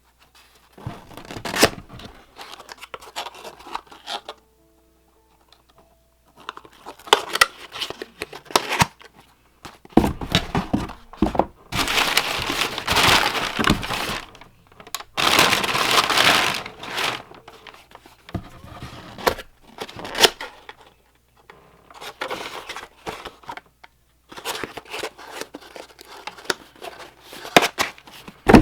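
Cardboard and plastic packaging torn open and crinkled by hand, in irregular bursts with a few longer stretches of tearing.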